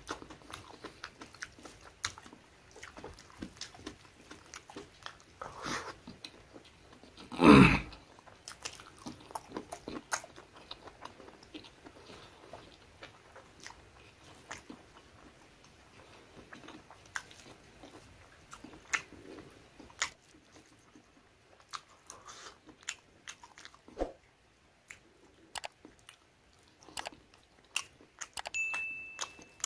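Close-miked chewing and lip-smacking of a person eating rice and chicken gizzard curry by hand, with scattered crunches and clicks. A loud, short mouth noise with a falling pitch comes about seven and a half seconds in, and a brief steady electronic tone sounds near the end.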